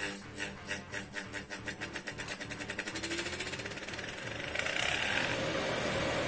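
Sewing machine motor spinning up. A regular clicking speeds up into a fast rattle with a rising tone, then settles into a steady whirr.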